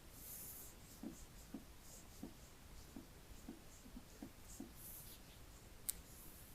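Faint handling sounds from hands working with small objects: soft rustles and scrapes, a string of light taps about every half second, and one sharp click near the end.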